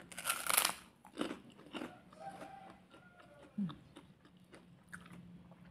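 A bite into a crisp kerupuk cracker: one loud crunch right at the start, then several fainter crunches as it is chewed.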